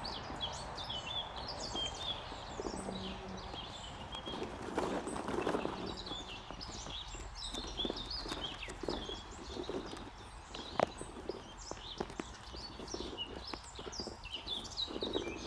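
Plastic balls clattering and knocking in a plastic ball pit as puppies and dogs rummage through it, with one sharper knock about two-thirds of the way through. Birds chirp throughout.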